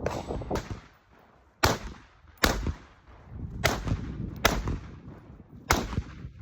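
Rifle fired shot after shot, about seven sharp reports spaced roughly a second apart, each trailing off with a brief echo.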